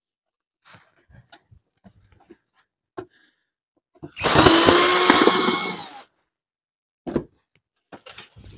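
Cordless drill-driver running for about two seconds near the middle at a steady pitch, backing out a screw that holds a scooter's headlight, with a few light clicks of handling before and after.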